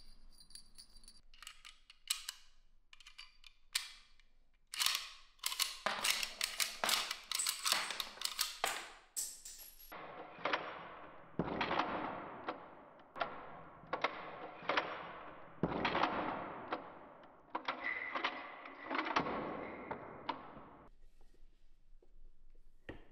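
Hand tools working on a K98 Mauser's wooden stock. First comes a run of sharp clicks and knocks, then about a dozen scraping strokes at roughly one a second.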